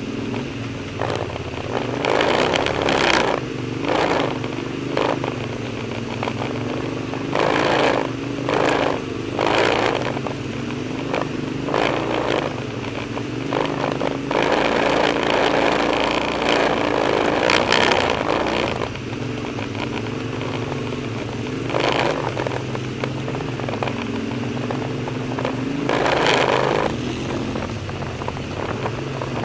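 ATV engine running over a rough trail, its pitch rising and falling again and again as the throttle opens and closes. Frequent short bursts of noise come over it, from the quad bumping and pushing through brush.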